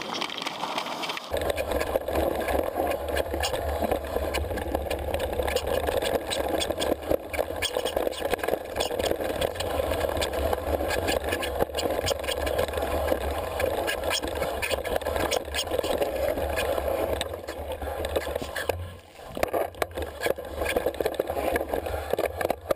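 Mountain bike rolling over a rough trail: wind rumble on the microphone with tyre noise and a steady rattle of small knocks from the bike. It eases off briefly a few seconds before the end.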